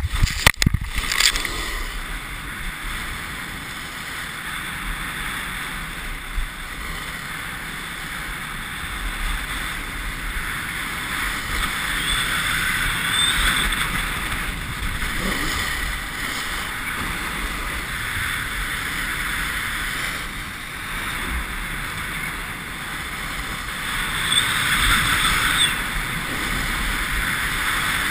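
Snowboard sliding and turning on groomed snow: a steady rushing hiss that swells around halfway and again near the end, with a few knocks right at the start.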